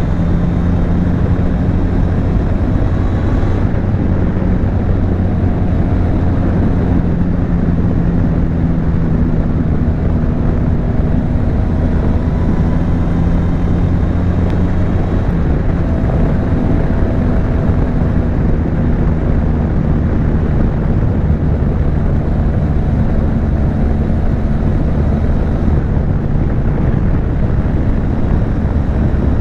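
Benelli TRK 502's parallel-twin engine and exhaust running under way. It holds a steady engine note that shifts slightly in pitch a few times.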